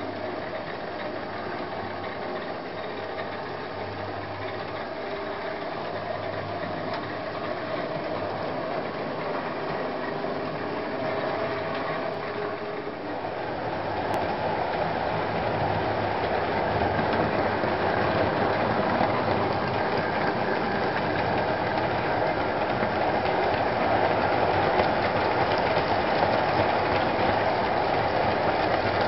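Model electric train running on the layout's track: a steady motor whir with wheels rattling on the rails, growing louder about halfway in as a passenger train comes past close by.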